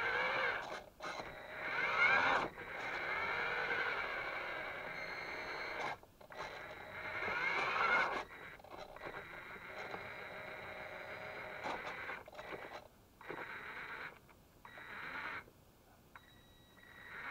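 Electric motors and plastic gears of a radio-controlled toy Linde forklift whining in start-stop bursts, the pitch rising and falling as it drives and works its forks. The bursts are strongest in the first half and shorter and fainter later on.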